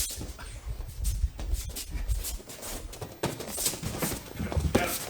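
Two people scuffling and grappling on a training mat: a run of short knocks and rustles, with low thuds in the first couple of seconds.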